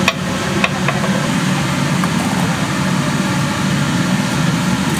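A steady low machine hum, like a motor or engine running, with a few light clicks in the first second.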